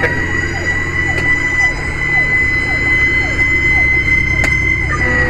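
A loud, steady high-pitched tone that dips slightly in pitch near the end, over a low rumble, with a faint falling chirp repeating about twice a second.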